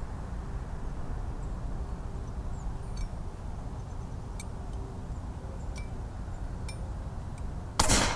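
Steady low outdoor background with a few faint high clicks, then near the end a single sharp shot from an Umarex Gauntlet 2 .22 PCP air rifle firing a pellet.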